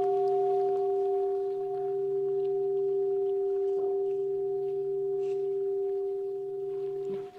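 Buddhist bowl bell ringing on after a strike: one long, steady tone with a few higher overtones. It cuts off suddenly near the end.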